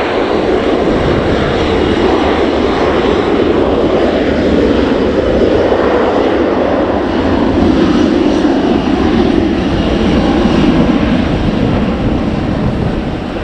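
Airliner passing close overhead at the airport: loud, steady engine noise that swells a little and then begins to ease off near the end.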